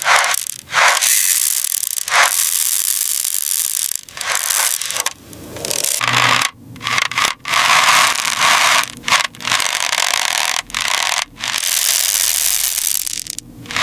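Repeated scraping and rubbing strokes, each from a fraction of a second to about two seconds long, with short breaks between.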